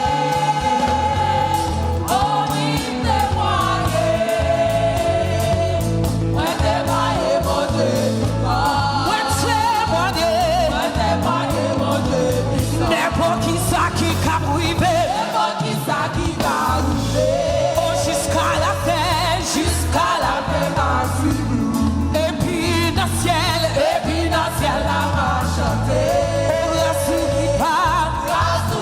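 Gospel worship song sung by a praise team over a band, with a steady bass line and drums.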